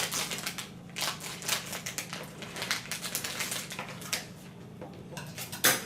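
Crinkly mystery-pack wrapper being torn open and handled: a rapid, irregular run of crackles and rustles, with a louder crackle near the end.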